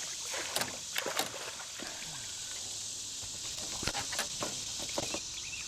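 Steady rush of river water, with scattered small splashes and knocks.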